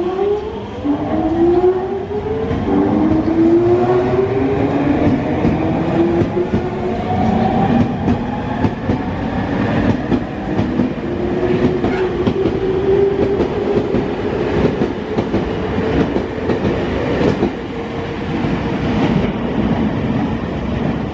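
Nankai 2000-series electric train pulling out and accelerating: its inverter-driven traction motors whine, climbing in pitch in several steps, over the rumble of the cars and the clack of wheels over rail joints. Near the end the sound changes abruptly to a duller rumble.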